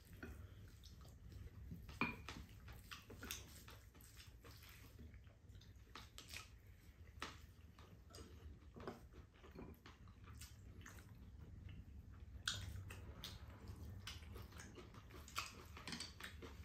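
Faint eating sounds: spoons and chopsticks scraping and tapping ceramic bowls, with chewing, heard as scattered soft clicks over a low steady hum.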